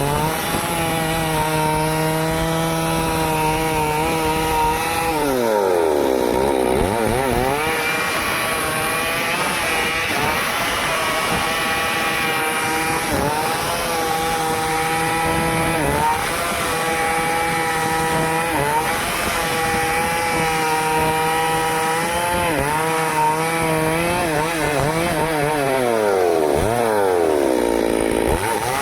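Stihl two-stroke chainsaw running at high revs, cutting wood. About five seconds in and again near the end the throttle is let off: the engine pitch falls to idle and then climbs back up to full speed.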